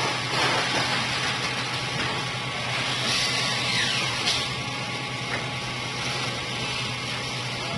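Steady din of factory machinery in a woodworking plant, with a constant low hum and a short falling hiss about four seconds in.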